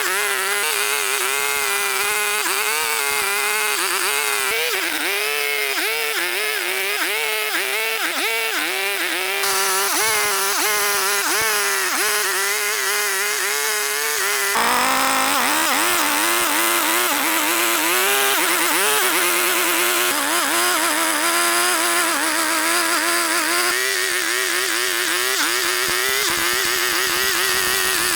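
Small two-stroke chainsaw engine running at high speed, its pitch dipping again and again as it bites into wood, with sudden jumps in tone where the footage is cut.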